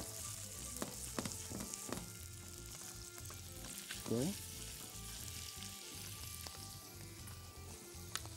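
Pieces of spicy Egyptian beef sausage sizzling steadily in vegetable oil in a nonstick frying pan, as the sausage begins to shrink and curl at the ends in the first stage of cooking. A few light clicks, and one short rising sound about four seconds in.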